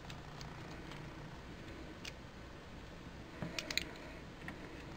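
A small screwdriver works screws out of the plastic housing of a GHD Eclipse hair straightener: scattered faint clicks and ticks, with a quick run of louder clicks a little past halfway.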